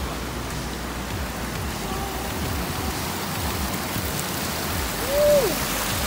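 A waterfall: water rushing and splashing over rock ledges in a steady hiss. About five seconds in comes a short rising-then-falling squeal, the loudest moment.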